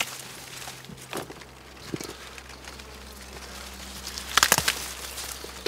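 Hands working among garden plants: a few sharp clicks and snaps, with a quick cluster of loud snaps about four and a half seconds in, over a steady low hum.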